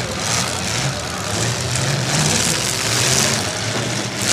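Demolition derby car engine running loudly, its pitch rising and falling as it is revved.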